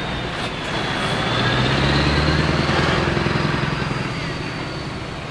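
Diesel engine of a heavy truck tractor unit pulling away slowly. It gets louder about a second and a half in and fades as the truck moves off, with a thin high whistle above the engine note.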